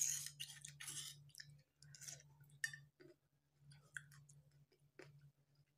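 A person chewing a mouthful of parijoto fruit rujak: faint, irregular wet mouth clicks and smacks.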